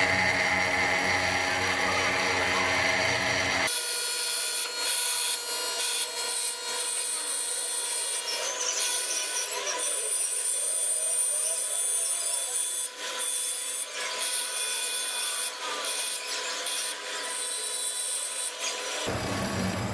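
Abrasive rubbing strokes on metal, repeated with short breaks, as a lathe tool bit is shaped by hand.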